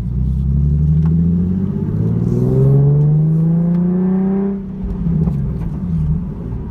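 Nissan 370Z's 3.7-litre V6 through a Tomei Expreme catback exhaust, heard from inside the cabin while accelerating. The engine note rises in pitch for about four seconds, then drops suddenly as the throttle is lifted, and settles into a lower, steady drone.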